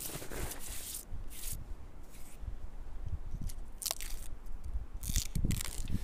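Short, irregular crunching and scratching: a hand picking at and peeling papery birch bark, with steps in the snow between trunks.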